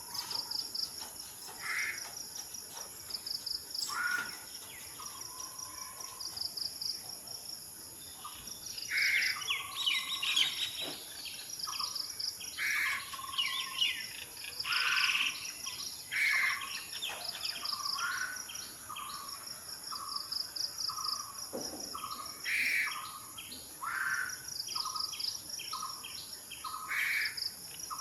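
Asian koel calling repeatedly among other birds' chirps, over a steady high insect drone and pulsing insect chirps.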